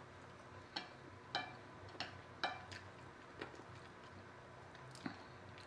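A person eating fried noodles with chopsticks: a scatter of short clicks and smacks, about seven in the first three seconds and a close pair near the end.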